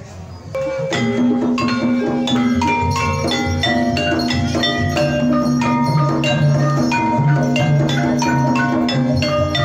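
Javanese gamelan accompaniment for kuda kepang: mallet-struck metallophones playing a quick, repeating melody over sustained low notes, coming in about a second in after a brief lull.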